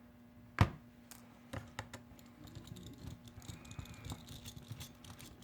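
Small clicks and taps of a phone's plastic parts and a repair tool being handled during disassembly, with one sharper knock about half a second in.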